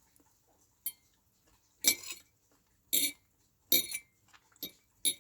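Metal cutlery clinking against a plate while eating: about six sharp, ringing clinks at uneven intervals.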